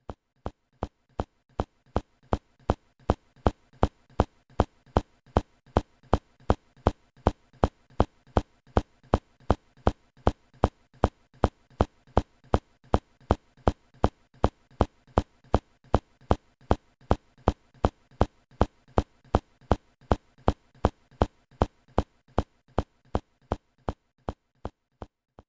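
A percussion instrument struck in a steady, even beat of about three hits a second, each a sharp, short, slightly pitched hit. The hits grow louder over the first few seconds and fade toward the end.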